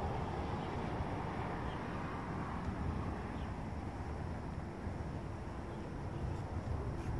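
Steady low rumble of outdoor background noise, with a few faint short high chirps.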